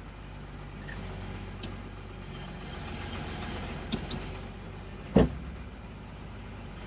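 John Deere 4030's six-cylinder diesel engine running steadily at low speed as the tractor is manoeuvred back and forth, heard from the operator's seat. A few clicks and clunks come through, with one sharp knock about five seconds in as the loudest sound.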